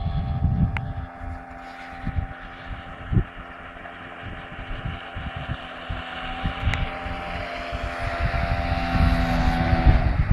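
Hangkai 6 outboard motor running under way, a steady engine tone that climbs a little in the second half and drops briefly near the end. Wind buffets the microphone throughout.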